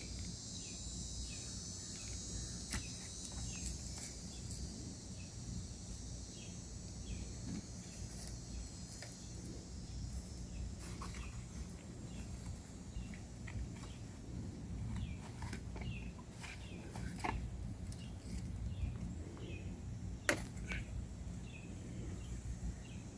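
Woodland ambience: a steady high drone of insects that fades after about the middle, with faint short bird chirps and a low hum underneath. A few sharp clicks stand out, the loudest near the end.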